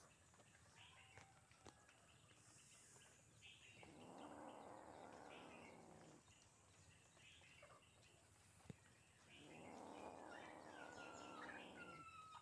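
Faint birds chirping in the background, with a soft breathy hushing sound twice, each lasting about two seconds.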